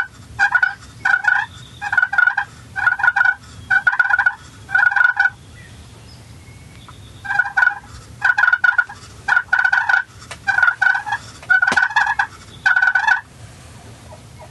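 Wild turkey calling close by: two loud series of short yelping notes, about two a second and nine or so notes each, with a pause of about two seconds between the series.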